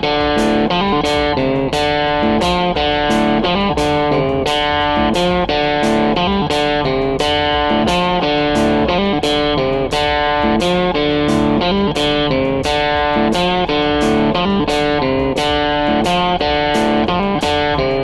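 Background music: electric-guitar instrumental with a steady beat.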